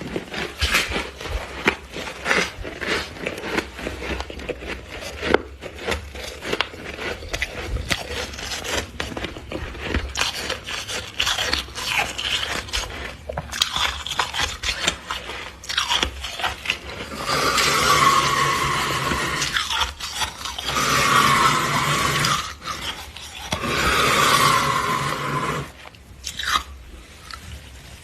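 Freezer frost being bitten and chewed: a dense run of irregular crunches. Near the end come three longer, louder rasping stretches of about two seconds each.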